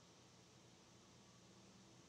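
Near silence: faint, steady hiss of room tone.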